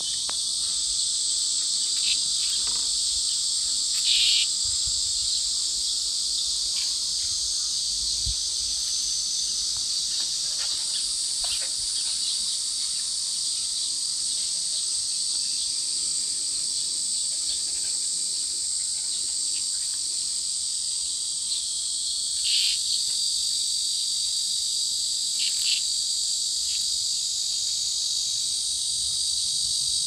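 Cicadas buzzing in a continuous high-pitched drone, with a few short louder buzzes standing out: once a few seconds in and twice in the last third.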